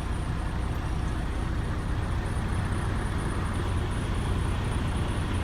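Steady engine and road noise heard from inside a slowly moving vehicle's cab, with a strong low rumble and no clear events.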